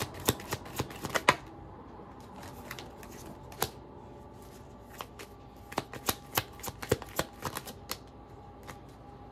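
A deck of tarot cards being shuffled by hand: a run of sharp card taps in the first second or so, a quieter stretch, then another run of taps from about five to eight seconds in.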